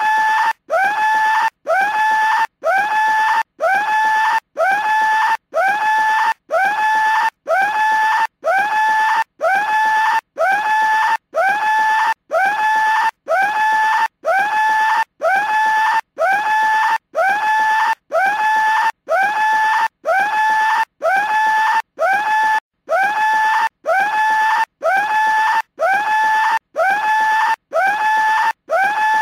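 Cartoon skull telephone ringing with a scream: short, loud screams, each sliding up in pitch and then holding, repeated evenly about three times every two seconds.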